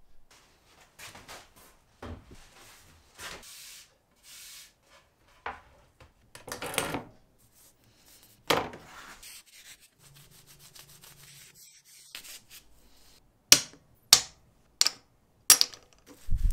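Small metal cabinet hardware being cleaned and handled on a wooden board: scattered scraping and rubbing strokes, then four sharp clicks about two-thirds of a second apart near the end.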